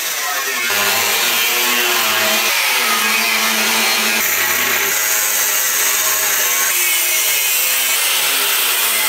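Angle grinder with a thin cut-off disc cutting through the steel shell of a smoker's cook chamber. It gives a steady, loud grinding, with a slight shift in tone every second or two as the disc loads.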